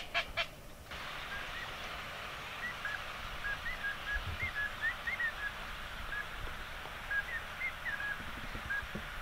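The last few notes of a duck call being blown in short, sharp cutting notes stop about half a second in. After that comes steady open-marsh ambience: an even hiss with faint, short, high bird chirps scattered through it.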